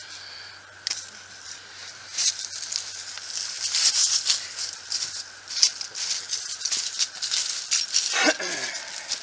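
Crinkly rustling and crackling with many quick rattling clicks, starting about two seconds in: someone moving through dry leaf litter and handling gear close to the microphone. Near the end a short cry slides steeply down in pitch.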